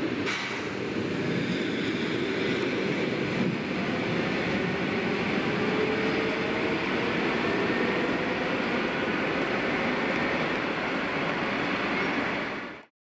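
EP2D electric multiple unit running along the platform: a steady rumble of wheels on rails with a faint whine that shifts slowly in pitch. It cuts off abruptly near the end.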